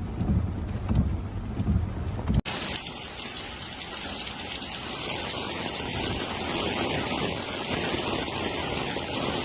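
A low vehicle engine rumble for about two seconds, then a sudden change to the steady hiss of a heavy downpour.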